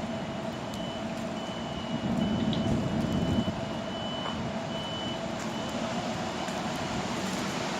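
An electronic warning beeper sounds a single high tone in repeated short beeps, a little faster than once a second, stopping about two-thirds of the way through. Underneath is a steady low rumble and hiss that swells briefly about two seconds in.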